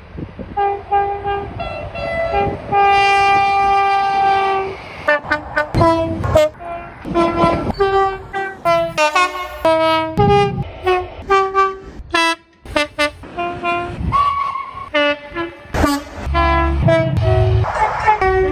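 A rapid run of British train horns, mostly short blasts that switch between a lower and a higher note, with one long held blast about three seconds in.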